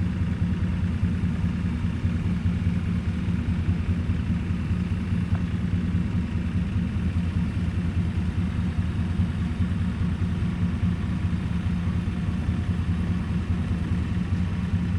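Tractor engine running at a steady idle.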